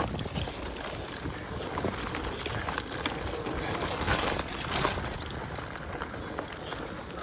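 Mountain bike rolling along a dirt and gravel trail: a steady rush of tyre and riding noise with many small rattles and clicks from the bike and stones.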